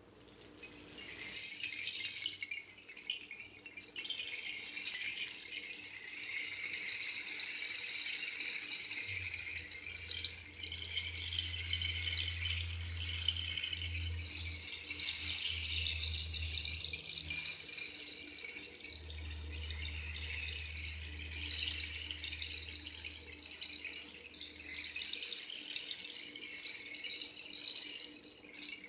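Homemade wooden rain stick, filled with dried rice, split peas and black-eyed peas falling past hundreds of nails driven through the tube, making a continuous rain-like hiss. The hiss starts about a second in and swells and eases as the stick is tipped.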